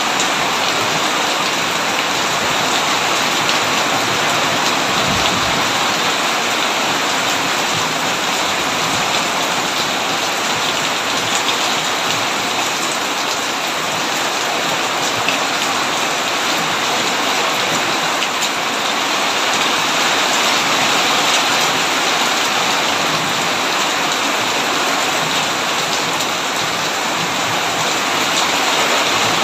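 Heavy rain falling steadily on a tin roof.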